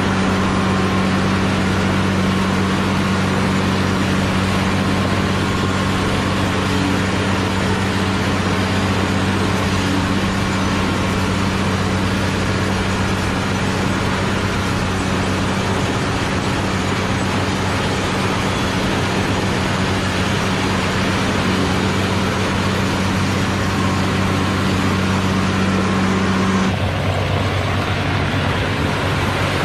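Caterpillar 120 motor grader's diesel engine running steadily under load as its blade spreads gravel aggregate, over a constant hiss of stone. Near the end the engine note changes.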